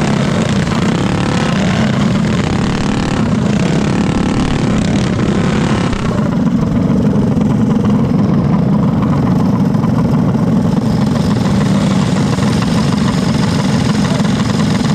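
Several stock Predator single-cylinder four-stroke go-kart engines running hard on a dirt track, heard on board. About six seconds in the sound turns duller and lower as the karts ease off and bunch up.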